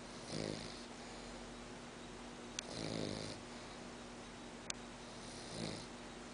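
French Bulldog snoring: three snores about two and a half seconds apart, the middle one the longest. Two brief sharp clicks fall between the snores.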